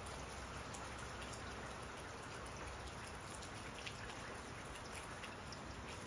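Steady rain falling: an even hiss with a few louder individual drops ticking now and then.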